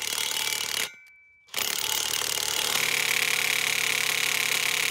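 Cordless impact wrench hammering on a concrete screw anchor through a steel post bracket, in two runs with a brief stop about a second in. The anchor is so tight in the concrete pier that it barely turns even under the impact wrench.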